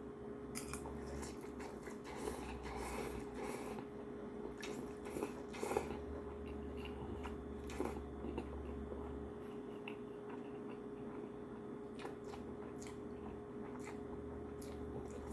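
A man chewing and eating hot ramen noodles: soft mouth and chewing sounds with scattered small clicks, busiest in the first six seconds, over a steady low hum.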